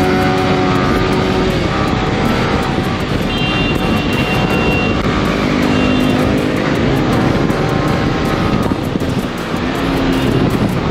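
Heavy wind rush and engine noise from a Yamaha sport motorcycle cruising at highway speed, picked up by a helmet-mounted camera, with background music mixed in. The noise eases slightly near the end as the bike slows.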